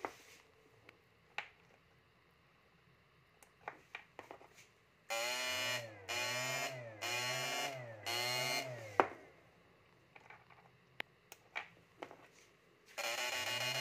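Electrofishing inverter humming with a pitch that rises and falls about once a second, running for about four seconds from a third of the way in and coming back on near the end. A sharp click cuts it off, and toggle-switch clicks and small taps fill the quiet stretches.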